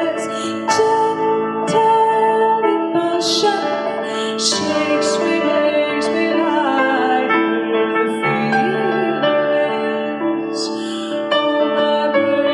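Music: a woman singing over held keyboard chords.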